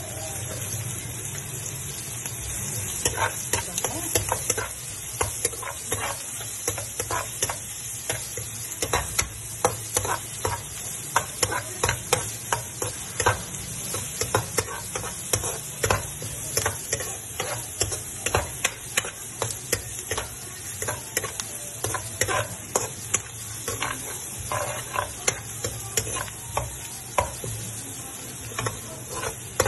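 Sliced red onion and garlic sizzling steadily in hot oil in a nonstick wok, with a slotted spatula scraping and clicking against the pan as they are stirred, the clicks starting about three seconds in and coming irregularly.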